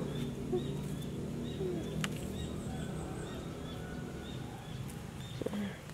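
A small bird chirping over and over, short high calls about two a second, over faint outdoor background noise, with one sharp click about two seconds in.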